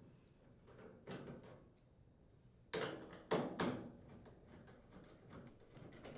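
Nut driver unthreading the front bulkhead mounting screws of a Maytag dryer: a few faint clicks and knocks, the loudest a cluster of three about three seconds in.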